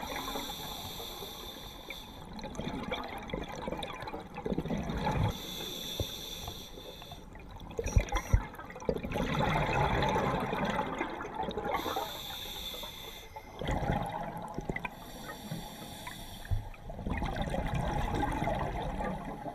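Scuba regulator breathing heard underwater: a hiss on each inhalation alternating with a gush of bubbling exhaust on each exhalation, over several breaths. Two sharp knocks sound about eight seconds in.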